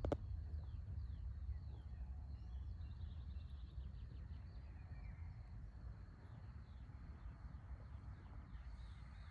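Faint birdsong: many short, quick chirping calls from small birds, over a low steady rumble, with a brief click right at the start.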